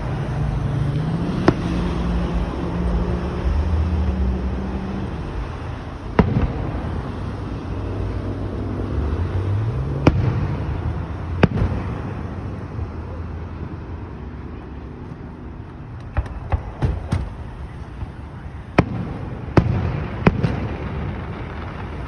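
Fireworks bursting overhead: about ten sharp bangs at irregular intervals, with a quick run of several bangs past the middle. Under them runs a low engine hum that rises in pitch twice.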